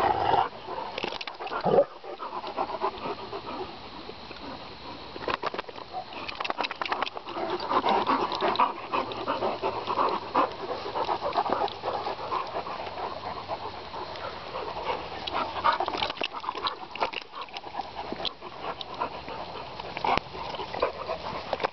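Great Danes play-fighting at close range, panting hard, with scattered short clicks and scuffles from their rough play.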